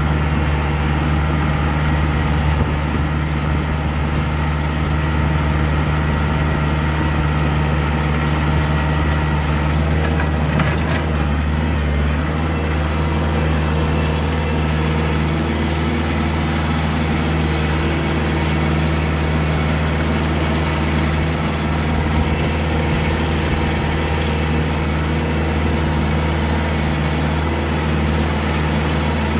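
Kioti compact tractor's diesel engine running steadily while pulling a box blade along a gravel road.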